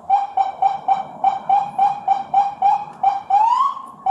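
A dog barking rapidly in short, high yaps, three or four a second. Near the end it breaks into two rising howls.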